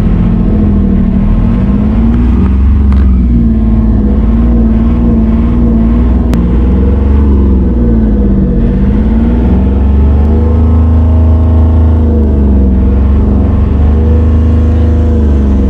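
Enclosed lifeboat's diesel engine running loudly, heard from inside the cabin, with a deep steady hum. Its pitch wavers up and down again and again.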